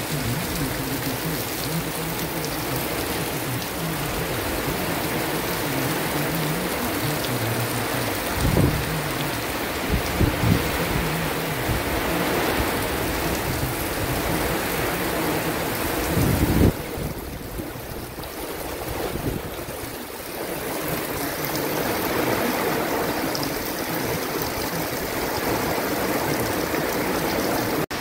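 Heavy tropical-storm rain pouring steadily, with gusting wind. There are a few louder, brief low rumbles of wind about 8, 10 and 16 seconds in.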